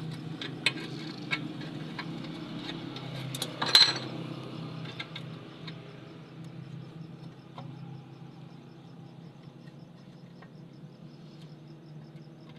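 Metal hand tools and parts clinking and clattering during engine work, with separate sharp clicks and a louder clatter about four seconds in. A steady low hum runs underneath.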